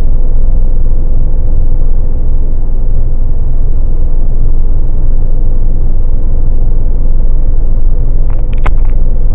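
Mercedes-Benz car cruising at highway speed, heard from inside the cabin: steady road and engine noise with a low rumble. A few brief clicks sound near the end.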